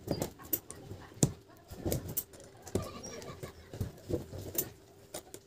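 Thin steel laminations of a small transformer core clicking and scraping as they are pried loose with a pointed metal tool: irregular small clicks and scrapes, with one sharper click about a second in.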